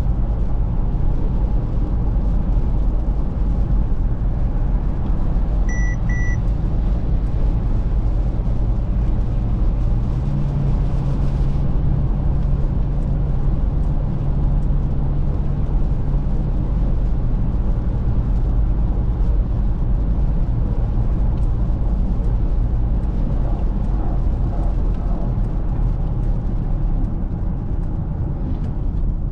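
Mercedes-Benz GLC Coupé 300de driving: a steady rumble of road and tyre noise. Two short high beeps sound about six seconds in, and a low hum comes in from about ten to seventeen seconds.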